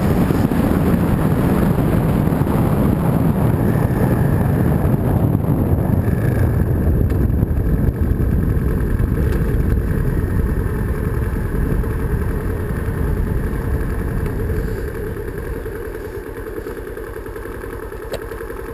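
Bashan Storm 250 motorcycle engine running hard at about 60 mph with a loud rush of road and wind noise, then easing off and getting quieter about three quarters of the way through as the bike slows.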